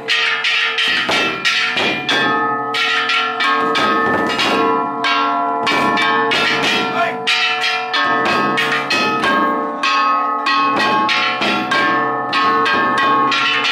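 Ishidori festival taiko drum and bronze kane gongs beaten together: a dense, continuous clanging of gong strokes with long ringing tones, over the beats of the big drum.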